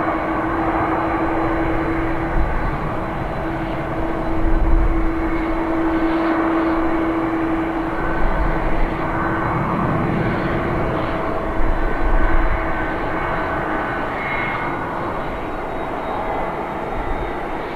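ANA Boeing 777-200ER twin-engine jet airliner taxiing at low thrust: a steady engine hum and whine, with a strong low tone that fades out about two-thirds of the way through and a few low thumps.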